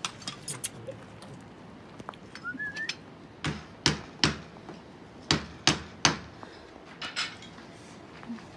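Hammer blows on masonry, chipping out concrete and tile: about eight sharp strikes in quick groups of two or three, starting about three and a half seconds in. Before them come a few light clicks and a short rising chirp.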